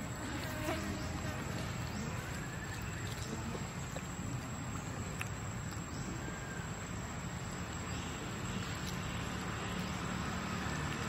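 Steady outdoor background noise, a low rumble with a hiss over it, broken by a few faint clicks.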